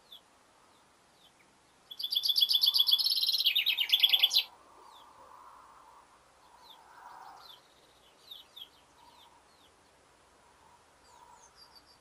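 Male chaffinch singing one full song starting about two seconds in: a fast run of repeated bright notes lasting about two and a half seconds, dropping lower near the end. Fainter short chirps follow.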